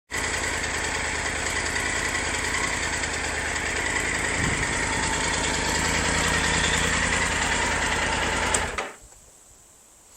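Motorcycle engine idling steadily, then shut off abruptly near the end.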